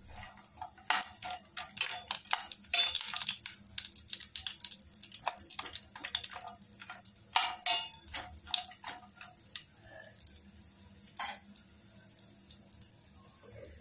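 A steel spoon stirring kuzhambu vadam (sun-dried lentil dumplings) as they fry in a little ghee and oil in a stainless steel pan: a run of irregular scrapes, clinks and crackles that thins out after about eleven seconds.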